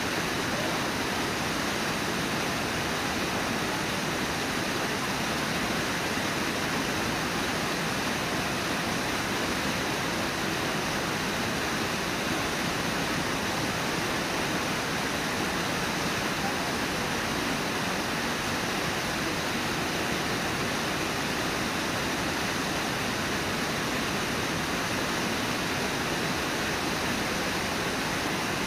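Steady rush of Brooks Falls, river water pouring over the falls.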